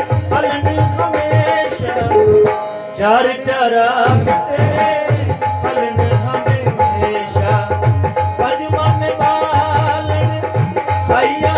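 Live qawwali music: tabla drumming under the held notes of a harmonium, with a man singing in places. The drumming drops out briefly about three seconds in, then picks up again.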